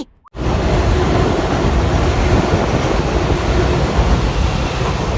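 A loud, steady rushing noise with a heavy low rumble, starting abruptly after a brief silence.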